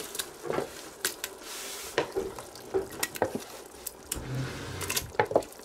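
Roasted tomatoes going into a hot pot of sautéing leeks and garlic: a light sizzle under scattered clinks and scrapes of a utensil against the pot and tray.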